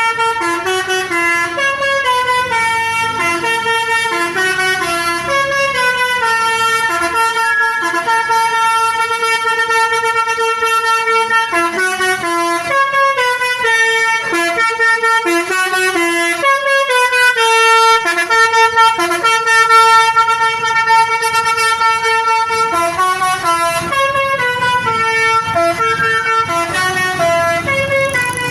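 Basuri V3 telolet horn, a musical multi-tone bus horn, playing a tune: a run of loud horn notes that step up and down in pitch and hold between steps.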